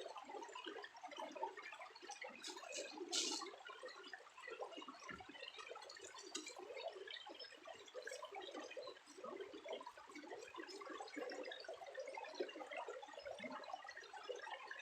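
Faint trickling and dripping water, a steady patter of tiny splashes, with a brief louder rustle or knock about three seconds in.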